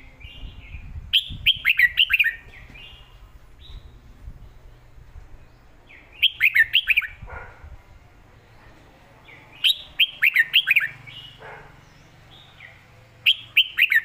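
Caged red-whiskered bulbul singing: four short, loud phrases of quick whistled notes, one about every three and a half seconds, with softer notes between them. It is the clear doubled song that Thai keepers call 'เบิ้ล'.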